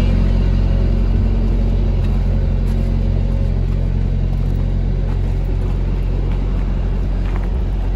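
A diesel engine idling steadily: an even, low drone that does not change.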